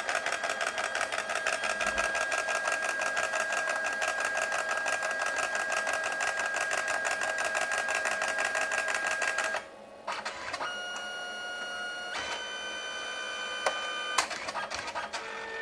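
Canon Selphy CP1300 dye-sublimation photo printer starting a print, with a lot of noise: a fast, even ticking from its paper-feed motor with a steady whine, which stops abruptly about ten seconds in. A quieter motor whine with several steady tones follows as the paper is pushed out the back.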